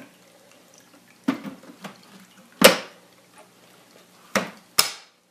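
Four sharp clicks and knocks, irregularly spaced, the second the loudest, as a bagless upright vacuum cleaner's parts are handled.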